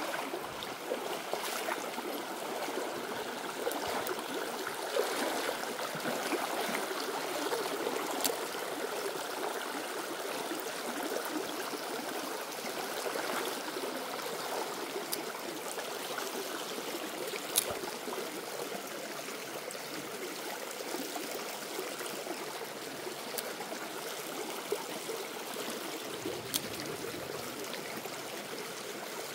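Water of a small, shallow stream running steadily, with a few faint sharp clicks.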